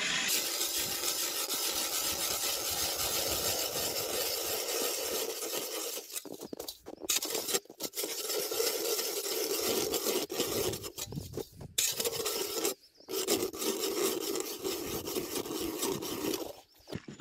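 Hand-cranked ice auger boring into lake ice: a steady rasping scrape of the blades cutting the ice, broken by several brief pauses in the second half as the cranking stops and starts again.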